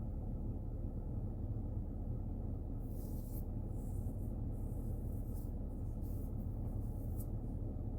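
Steady low drone of a 2015 Chevrolet Tahoe's V8 and road noise heard from inside the cabin on a test drive, with no stumble or misfire showing. Brief hissy rustles come and go in the middle.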